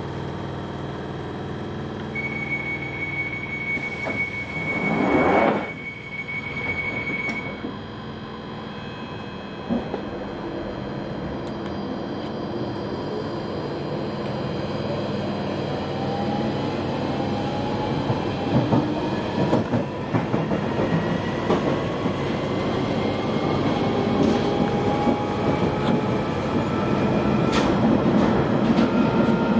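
London Underground 1995 Stock train departing: a steady warning tone sounds for several seconds and a short loud rush of noise comes as the doors close. Then the train pulls away, its motor whine rising in pitch and the running noise growing louder as it gathers speed.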